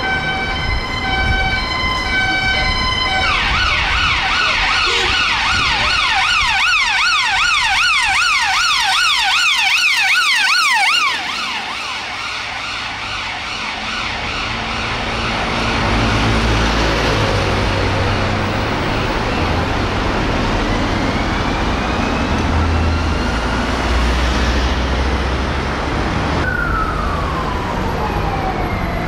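Police car sirens in city traffic: a two-tone hi-lo for the first few seconds, then a rapid yelp that cuts off abruptly about eleven seconds in. After that, slower rising and falling wail sweeps over the rumble of traffic engines.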